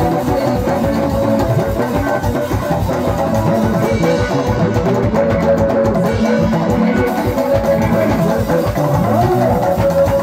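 Live band music with a steady, even beat: hand drums and drum kit under plucked guitar lines, and no singing.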